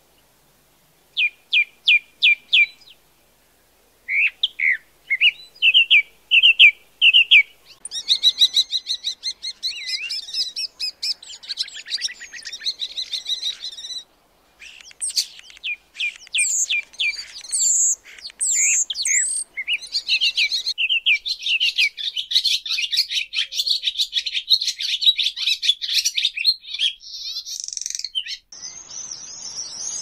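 Skylark song, first as short repeated notes and then a dense, fast warbling. After a short break about 14 seconds in it gives way to common starling song, a varied run of whistles, clicks and rattles. Near the end a different, higher twittering starts.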